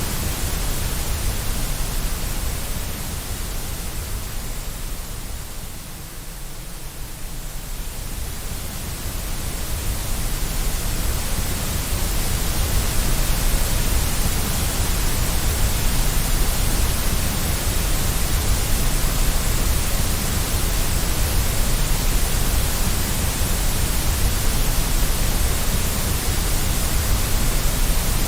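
Steady white noise, an even hiss with a strong low rumble, played as a baby-soothing sleep sound. It dips in loudness about five seconds in and swells back to full level by about ten seconds.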